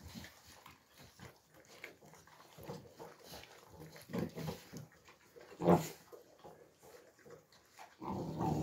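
Alabai (Central Asian Shepherd) puppies eating from a shallow pan, making irregular, soft eating noises with their mouths in the food. One short, louder sound comes a little past the middle, and a longer one near the end.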